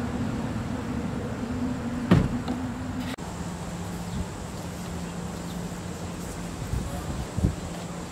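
A steady low hum that steps slightly lower in pitch about three seconds in, with one sharp knock about two seconds in and a softer knock near the end.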